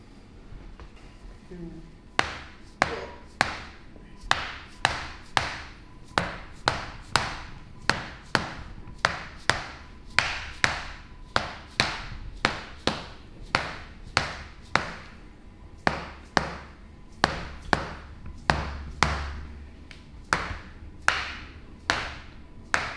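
Chiropractor's adjusting hammer striking the patient's back in a steady series of sharp taps, about one and a half a second, starting about two seconds in. The strikes are meant to free a stuck pelvis.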